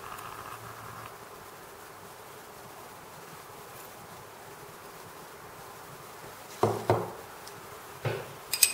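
Faint steady buzzing hum, then a few sharp knocks a little past halfway and a brief bright clink near the end: bowls and a spoon handled on the kitchen counter.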